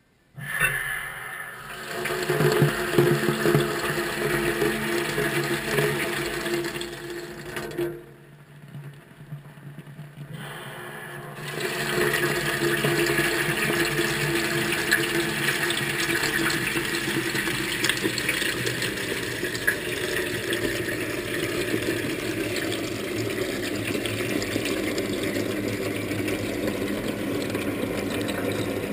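Washing machine filling with water at the start of a wash cycle, heard from inside the drum: water rushing in starts suddenly, drops back about eight seconds in, then comes back and runs steadily.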